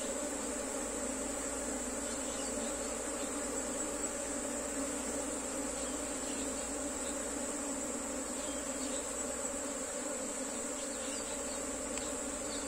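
A colony of honeybees buzzing in a steady, dense hum from the many bees crowding an open hive box. A steady high-pitched whine runs behind it.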